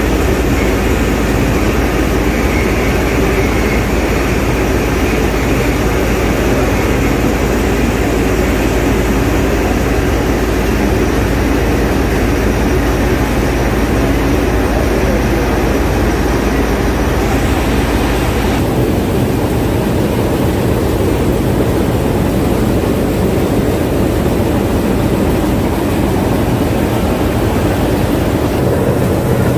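Tea-processing machinery running in the factory: a loud, steady mechanical drone from the screw spreader and conveyor that lay cut tea leaf onto the fermenting bed. About two-thirds of the way through, the deep rumble drops away and the sound thins.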